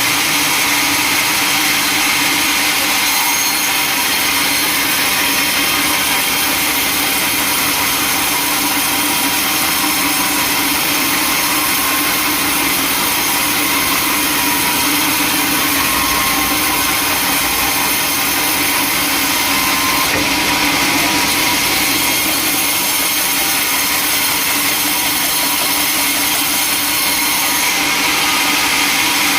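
Sawmill saw machinery running steadily: a loud, continuous machine noise, bright and hissy, with a faint steady hum under it and small shifts in tone about 3 seconds in, around 20 seconds and near the end.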